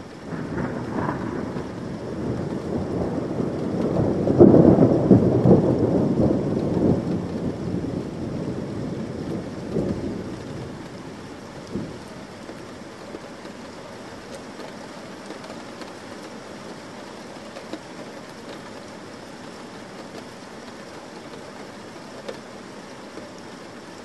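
A long roll of thunder swells right away, peaks about five seconds in, and rumbles away over the next several seconds. Steady rain hisses underneath and carries on alone once the thunder has faded.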